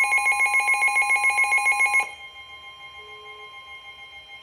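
Midland weather radios sounding their alert alarm for an incoming warning: a loud electronic tone pulsing rapidly, about eight pulses a second. About two seconds in it drops sharply, and a quieter pulsing alarm carries on.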